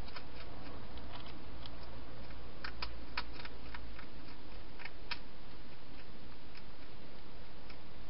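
A wild hedgehog eating inside a clear plastic feeding box: irregular small clicks and crunches of chewing, most of them around the middle, over a steady hiss.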